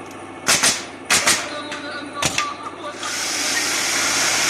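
Nails being driven into pallet wood: five sharp strikes, in two quick pairs and then a single. About three seconds in, a steady loud hiss sets in.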